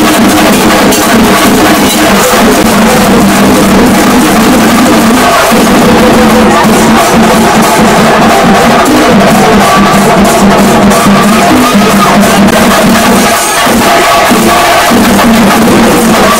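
Loud percussion-driven music with fast, dense drumming over a held note, with crowd voices underneath.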